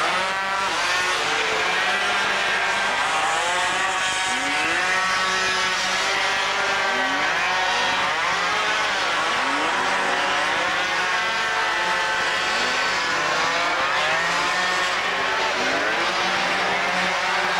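Several 50 cc two-stroke racing scooters at full throttle, their engines overlapping in whines that repeatedly rise and fall as the riders accelerate and back off through the corners.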